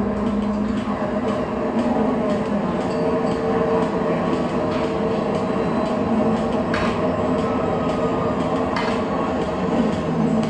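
Loud music through loudspeakers in a crowded dance hall, with a steady beat and sustained tones under a murmur of crowd noise.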